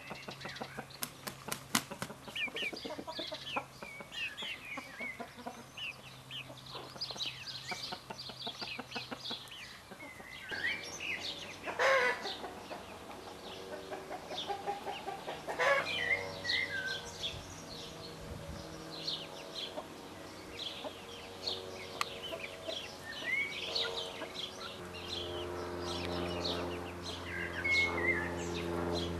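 Young gamefowl chickens and chicks peeping with many short, high chirps, with a few louder chicken calls about twelve and sixteen seconds in.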